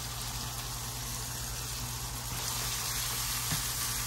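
Salmon and onions sizzling steadily in butter in a nonstick frying pan, with a light spatula tap near the end.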